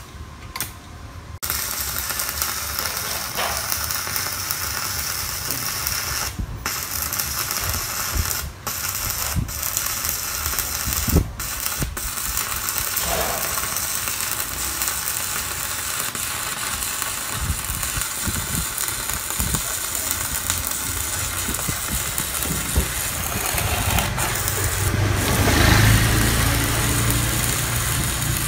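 Stick (MMA) arc welding with a 3.2 mm electrode on a Kenmax ARC 200 inverter welder: the arc is struck about a second and a half in, after a couple of sharp clicks, then sizzles steadily as the bead is run continuously, with a few brief breaks.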